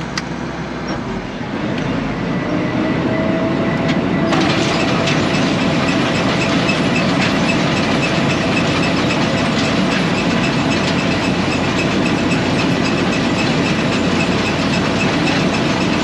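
Case IH 1480 combine with its threshing drives and newly replaced feeder-house belts switched on for a test. The machinery winds up with a slowly rising whine over the first few seconds, then about four seconds in jumps to a loud, steady running clatter at full speed.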